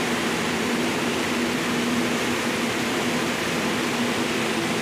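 Steady machinery hum with an even rushing noise underneath, unchanging throughout.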